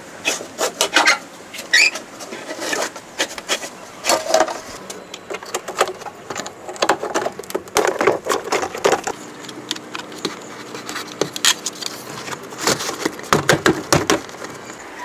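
Hand-tool work: irregular scraping and rubbing broken by many sharp knocks and clicks, in clusters.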